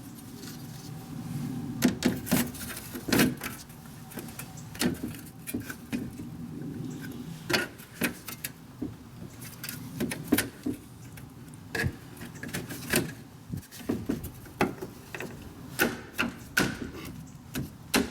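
Dog door frame being worked into a cut opening in the wall: irregular knocks and taps over a low scraping and rubbing as it is pushed and fitted.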